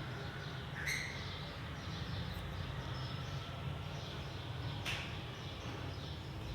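Fischer's lovebirds chirping, scattered and high, over a steady low hum, with two sharp clicks, one about a second in and one near five seconds.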